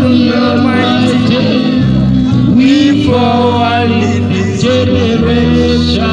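Live acoustic reggae: a man sings into a microphone while strumming an acoustic guitar, over a steady low bass line.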